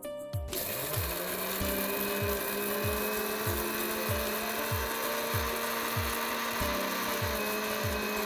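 Electric mixer grinder (mixie) switching on about half a second in, its motor spinning up with a rising whine, then running steadily as it dry-grinds roasted toor dal, dried red chillies and cumin to a coarse powder. Background music with a steady beat plays underneath.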